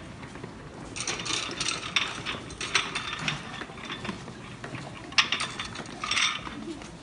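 Rapid rattling clicks, in a run from about one to three seconds in, then a sharp clack and another short rattle near the end.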